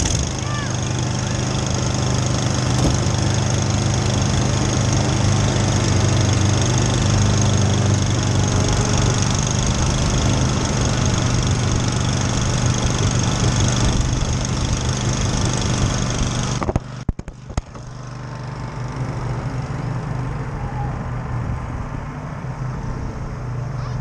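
Ride-on lawn mower's small engine running steadily and loud just after being started, with a hum and a high whine over it. About three-quarters of the way through it breaks off suddenly, then goes on quieter.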